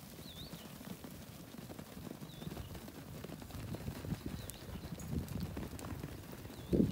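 Hooves of a flock of crossbred lambs running over dry dirt, a dense irregular patter of footfalls, with a louder thump near the end.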